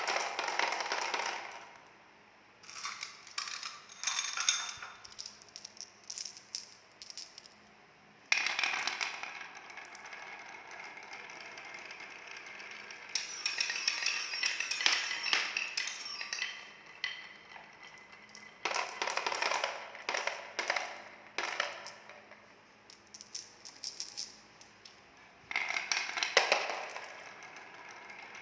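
Balls rolling and clattering down a wooden marble-run slider: several separate runs of quick clicks and rolling noise, each a few seconds long, with quieter gaps between them.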